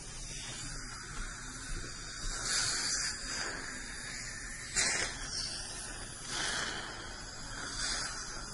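Dental rinse: the steady hiss of a water spray and suction at the teeth, swelling several times, most sharply about five seconds in.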